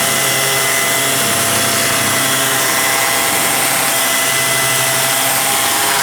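Dual action air sander running freely at full speed, a steady whine over an even hiss. It is spinning free again now that a loose hex screw that had jammed against its body has been tightened.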